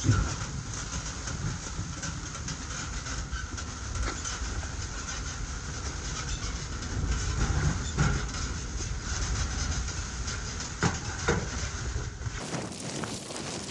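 Blizzard wind rumbling and buffeting steadily, with a few sharp clicks or taps over it. The sound changes abruptly near the end.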